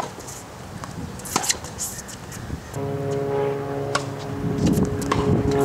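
A tennis ball struck with a racket, with another sharp hit about a second and a half in. From about three seconds in, a steady droning hum of several held tones sets in.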